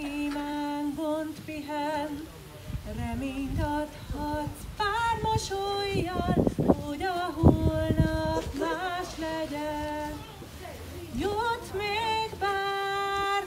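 A woman sings solo into a microphone, with long held notes and a wavering vibrato. A few low bumps come about six to eight seconds in.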